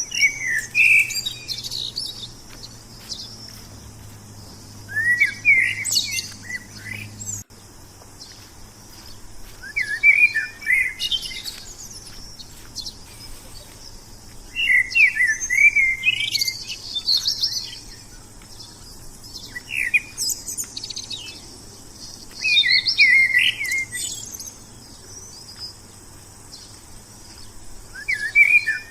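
A songbird singing short warbled phrases that recur about every five seconds, with higher chirps above them, over a steady high hiss in the background.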